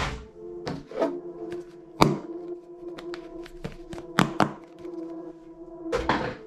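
Plastic toy guns and a plastic toy grenade being handled and set down in a wooden crate: a series of sharp knocks and clicks, the loudest about two seconds in and a quick pair just after four seconds. Soft background music with held notes runs underneath.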